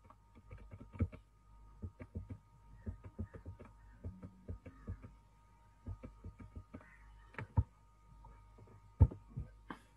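Irregular clicks and light knocks, a few a second, from a computer being worked to page through presentation slides, with a louder knock about nine seconds in. A faint steady high whine runs underneath.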